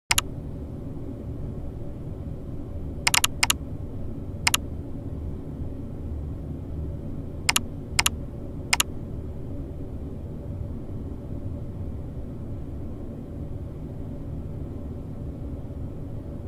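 A steady low rumble with sharp, thin clicks scattered through the first nine seconds: one or two at the very start, a quick pair about three seconds in, then single clicks, the last about nine seconds in.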